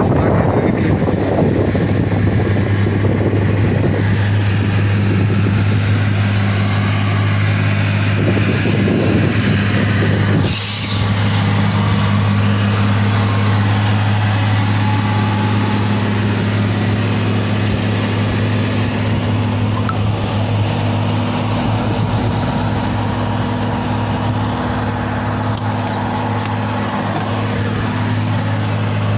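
Heavy truck engine running in a steady low drone, mixed with road and wind noise from traffic on the move. A short sharp hiss cuts in about ten seconds in.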